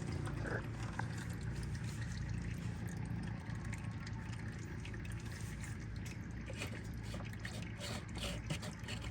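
Used engine oil draining from a 1973 Chevrolet Nova SS's oil pan into a drain pan, a steady trickle, with a few light clicks in the second half.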